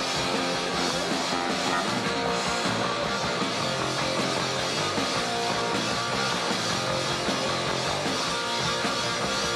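Punk rock band playing live, instrumental with no singing: electric guitar over drums.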